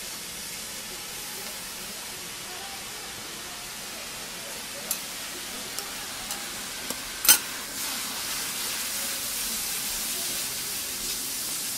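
Liquid poured from a metal cup onto yakisoba noodles on a hot steel teppan griddle sets off a steady sizzling hiss, which grows louder for the last few seconds as metal spatulas toss the noodles and cabbage. A sharp clack of a spatula striking the griddle about seven seconds in, with a few lighter taps before it.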